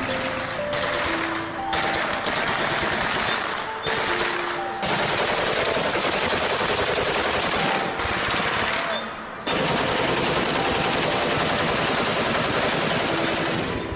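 Machine-gun sound effect: rapid automatic fire in a string of long bursts, the longest lasting several seconds, with short breaks between them. Light background music runs faintly underneath.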